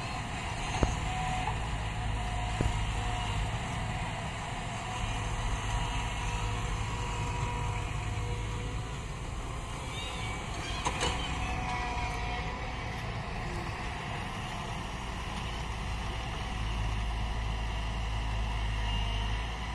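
Heavy diesel engines of a JCB tracked excavator and tipper trucks running steadily, a low rumble, with a few sharp knocks in the first few seconds.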